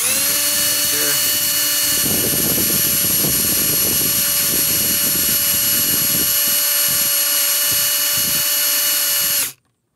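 Milwaukee cordless drill/driver running at full speed for about nine and a half seconds, backing out an air-box bolt: its motor whine spins up at the start, holds steady, then cuts off suddenly, with a rough, uneven chatter underneath from about two seconds in.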